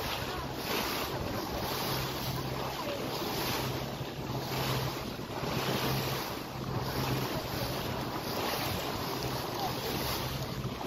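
Wind buffeting the microphone over water rushing and splashing past the hull of a moving boat, with a low steady hum underneath.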